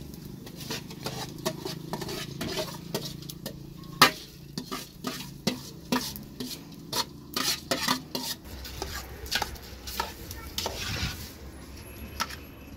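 Metal spoon clinking, knocking and scraping against aluminium pots and a metal bowl while rice is stirred in a pot, with irregular clinks about twice a second and the loudest knock about four seconds in.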